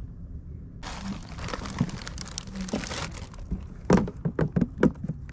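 Rustling and crinkling as a caught sea bream is handled over a plastic bin. From about four seconds in comes a quick run of sharp knocks and slaps, roughly four or five a second.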